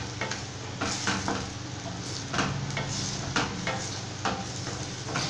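Tomato pieces and garlic sizzling in oil in a stainless steel kadai, stirred with a wooden spatula that scrapes and knocks against the pan again and again.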